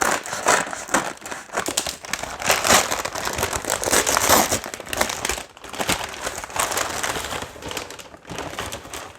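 Crinkly packaging being unwrapped by hand as a parcel is opened, with irregular crumpling and rustling that is busiest in the middle.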